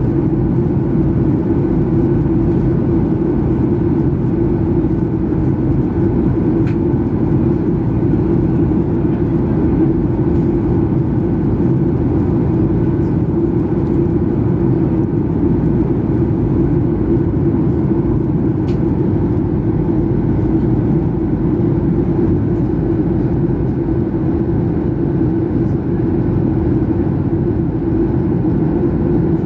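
Steady cabin noise of a Boeing 737-800 in flight, heard from a window seat over the wing: the CFM56-7B turbofans and the airflow past the fuselage make an even, deep rush with a steady hum. Two faint ticks come through, about seven and nineteen seconds in.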